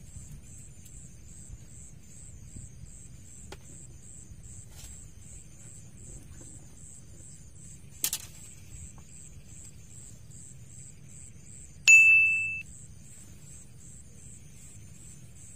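Night insects chirping in a steady high pulse, about four times a second. About twelve seconds in, a single sharp high ding rings for under a second and cuts off; a short click comes a few seconds before it.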